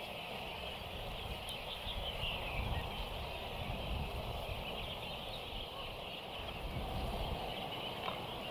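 Many birds singing at once in a distant chorus of high chirps and short whistles, over a steady low rumble.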